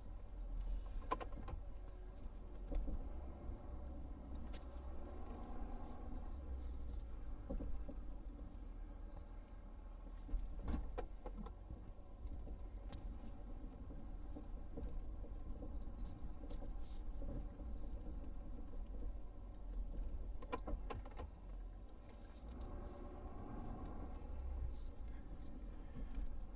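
Pickup truck engine idling, heard from inside the cab as a steady low rumble, with scattered light clicks and jingles on top.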